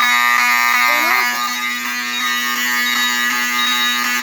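Fire alarm horn on a test board buzzing a continuous low, harsh tone, set off in alarm, cutting off abruptly at the very end.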